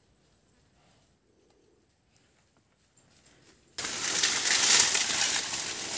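Near silence for almost four seconds, then a loud, dense rustling and crunching starts suddenly, as of the dry banana leaves lining a loaded wooden cart being jostled.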